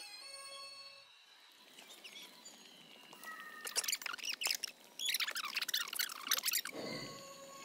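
Quiet night ambience with faint steady high tones, broken by two spells of rapid high-pitched chirping calls, one about three and a half seconds in and a longer one around five seconds in. A brief low sound follows near the end.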